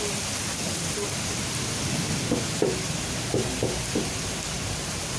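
Rain falling steadily with an even hiss. A few short, sharp sounds come through about two to four seconds in.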